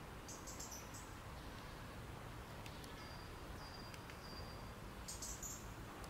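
Faint, high-pitched animal chirps: a quick cluster of short chirps near the start and another around five seconds in, with a few thin high whistles between them, over a low steady hum.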